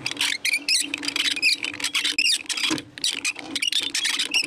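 Homemade roller bender being hand-cranked through a motorcycle gearbox, squeaking and clicking in quick, irregular high chirps as its rollers press a 6 mm steel rod into a ring.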